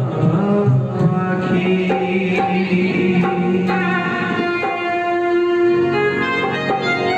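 Indian devotional music playing: a melodic instrument holds long notes that move in steps, over light percussion.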